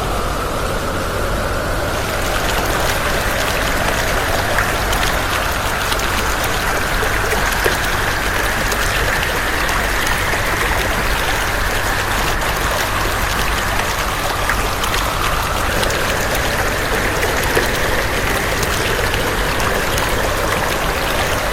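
Steady rushing, splashing noise of running water, unbroken and even in level.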